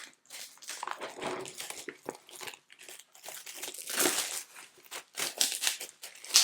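Plastic wrapping crinkling and crackling in irregular bursts, with some tearing, as it is handled and pulled off a boxed tarot deck.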